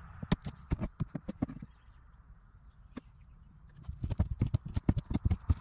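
Rotten wood in a fiberglass boat's transom being knocked and broken loose by hand, making rapid irregular knocks and cracks. The knocking comes in two flurries with a quieter gap in the middle.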